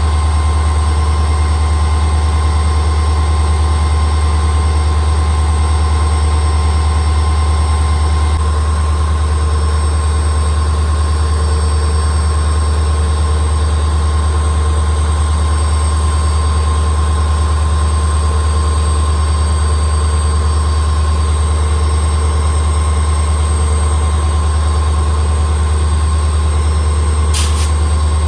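The 16-cylinder EMD 710G3B two-stroke turbocharged diesel engine of a WDP-4 locomotive running steadily. It makes a heavy, low hum with a steady high whine over it. A short click comes near the end.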